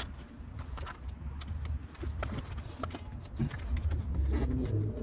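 Scattered light clicks and taps of hand tools and plastic engine parts being handled while connectors and bolts are taken off the intake, over a low rumble.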